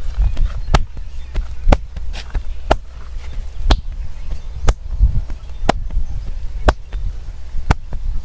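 Hands striking the body in a rhythmic percussive massage: sharp slaps or claps, the loudest about once a second with lighter taps between.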